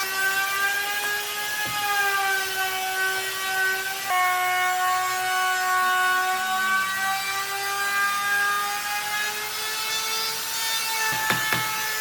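Electric power tool motor running with a steady high whine, its pitch sagging and recovering slightly as it works wood. A few sharp knocks come near the end.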